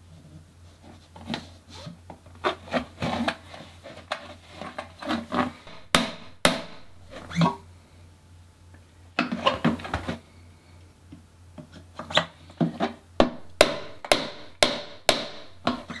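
Mallet tapping a seal press tool to drive new seals into the lower legs of a RockShox Bluto fork: knocks in several short bursts with pauses between, the sharpest single strikes in the second half.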